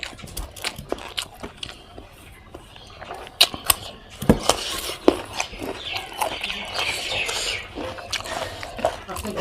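Close eating sounds: a person chewing and biting spicy pork, with wet mouth clicks and smacks. Several sharp, louder smacks come around the middle.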